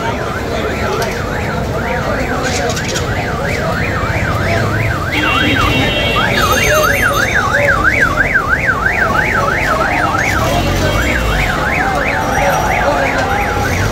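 An electronic siren sweeping quickly up and down, about four times a second, with short breaks about five and ten seconds in. Underneath is the steady hubbub of a large street crowd.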